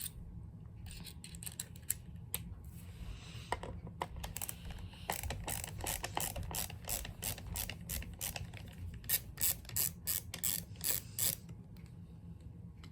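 A run of small, sharp mechanical clicks, sparse at first, then quick and loudest from about five to eleven seconds in before stopping: a screwdriver working screws out of an old hair dryer's housing.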